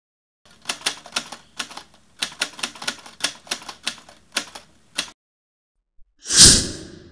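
Typewriter key clacks in an irregular run as the lettering is typed out, stopping about five seconds in. About a second later comes one loud sudden hit that fades away.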